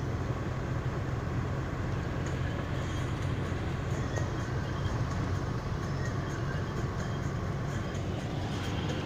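Steady cabin noise of a moving car: a low engine hum under the hiss of tyres on a wet road.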